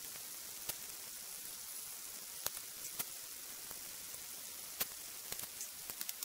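Chopsticks and a ladle clinking against a metal bowl and cooking pot: a dozen or so short, sharp clicks over a steady high hiss, bunched together near the end as the ladle goes into the pot.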